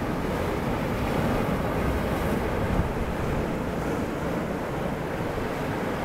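Sea surf breaking against shoreline rocks and washing back: a steady rush of water that swells slightly about halfway through.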